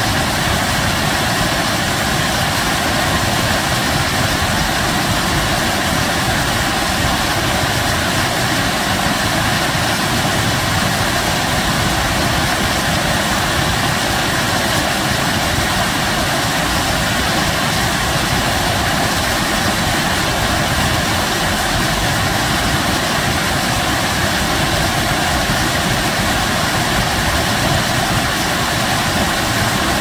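Waterfall: a curtain of water falling down a rock face and splashing at its foot, a steady, loud rushing.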